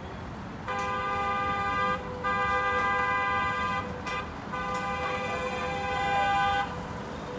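Multi-tone horn of a ride-on miniature train locomotive sounding three long blasts, each a steady chord, the last the longest at about two seconds, as a warning while it approaches a footpath crossing.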